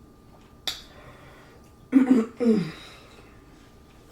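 A short sharp breathy sound, then a brief two-part wordless vocal sound from a woman, like a satisfied hum or sigh after eating.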